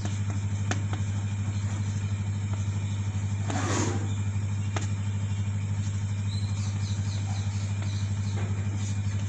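A loud, steady low hum runs throughout, under the faint taps and scratches of chalk writing on a blackboard. There is a brief rush of noise about three and a half seconds in.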